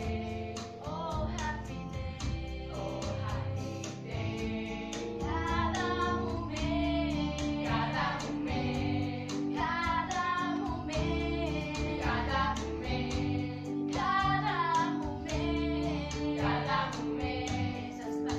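Young girls' voices singing a song over instrumental accompaniment, with steady held chords underneath.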